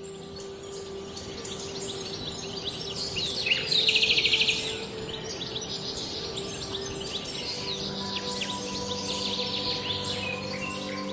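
Many birds chirping and calling, with a loud rapid trill about four seconds in, over a steady high hiss and soft sustained background music.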